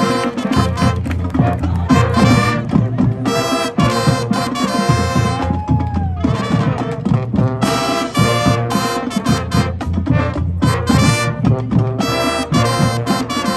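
Marching band playing a brass-led tune: short punchy brass chords with drum hits over a steady low bass line, with one sliding brass note about halfway through.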